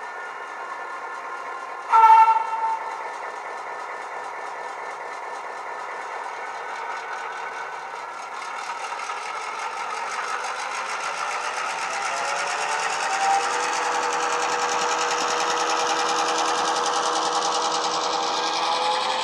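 A model locomotive's digital sound decoder plays an EMD two-stroke diesel through its small onboard speaker. The engine idles, a short horn blast sounds about two seconds in, and the engine then revs up and climbs in pitch as the locomotive pulls away with its train.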